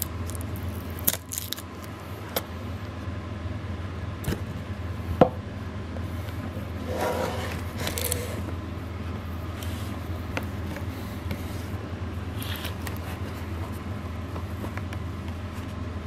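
Cardboard packaging handled by hand: a box sleeve and a foam-lined lid being slid and lifted, with scattered sharp taps and clicks and a longer scraping rush near the middle. A steady low hum runs underneath.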